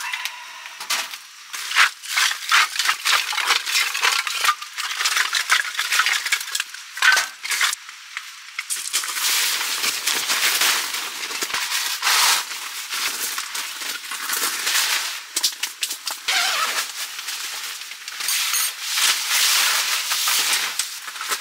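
Nylon fabric and mesh rustling and crinkling, with many small clicks, as a pop-up mosquito net is unfolded and handled.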